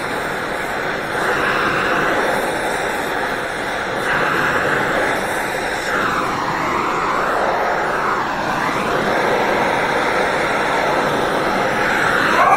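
Oxy-fuel gas torch flame hissing steadily while brazing a crack in a cast iron exhaust manifold; the hiss shifts in tone a few times around the middle.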